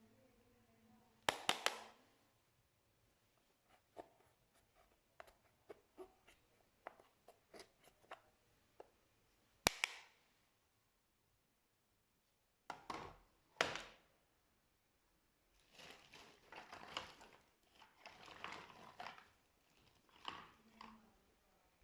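Slime being pressed and worked by hand: scattered sticky clicks and crackly pops with a few sharper snaps, then a longer run of crackling squishing over the last several seconds.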